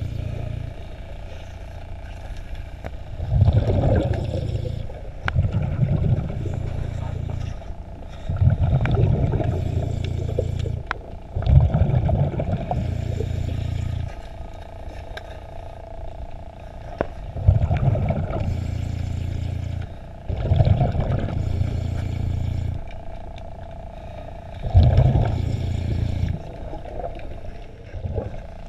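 Water rushing and sloshing past an underwater camera housing under a moving sailboat, coming in heavy, low surges every few seconds.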